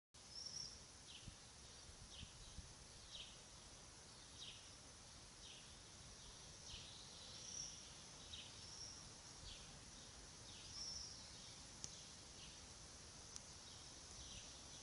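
Faint outdoor ambience with a bird calling over and over: short, high, downward chirps about once a second, over a steady high hiss.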